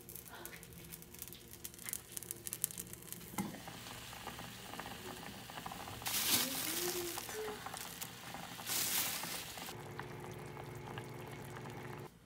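Kimchi stew bubbling and crackling at the boil in a ceramic pot on a gas burner. The pot lid is lifted off about six seconds in, with a loud hiss there and again about three seconds later, and a steady hum comes in near the end.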